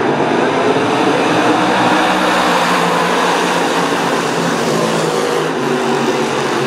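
A pack of dirt modified race cars racing together, their many V8 engines blending into a loud, steady drone.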